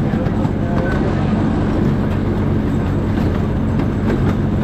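Miniature ride-on train running along its track, heard from aboard the open coach: a steady low engine hum with scattered light clicks from the wheels and track.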